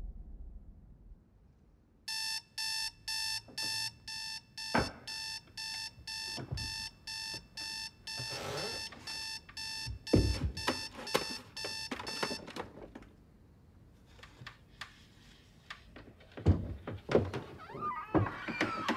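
Digital alarm clock beeping in a rapid even pulse, about two to three beeps a second, starting about two seconds in and stopping about twelve seconds in as it is switched off. Several sharp thumps and knocks fall during the beeping and again near the end.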